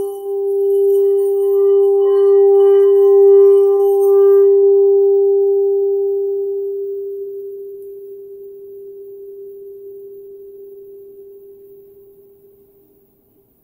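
Singing bowl ringing with one steady low tone and a few fainter higher overtones. The overtones die away after about four seconds, and the low tone fades slowly to nothing near the end.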